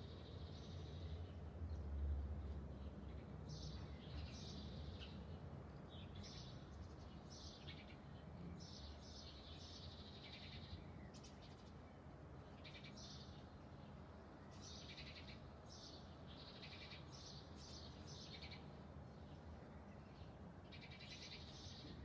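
Wild songbirds singing and calling outdoors: short, high, chirping phrases, one every second or two, over a faint low rumble that swells briefly about two seconds in.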